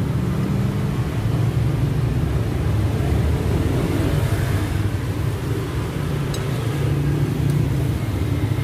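Steady low rumble of motor traffic passing on the street, with a couple of faint clicks of a spoon against a china plate late on.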